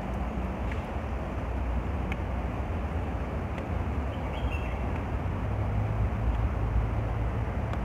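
Steady rumble of traffic on the elevated road overhead, a continuous noise with a deep low hum.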